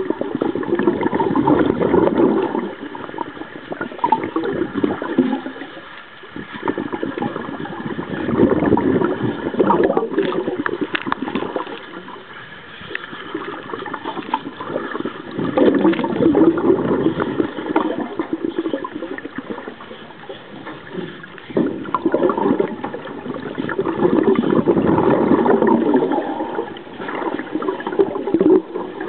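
A scuba diver's breathing heard underwater: bubbles from the regulator exhaust gurgling in long surges about every seven seconds, with quieter gaps between for the in-breaths. A faint steady whine runs underneath.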